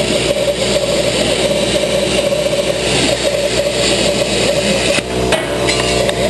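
Plasma cutter's torch cutting through steel sheet, a loud, steady hissing buzz. The arc cuts off about five seconds in, leaving a steadier machine hum.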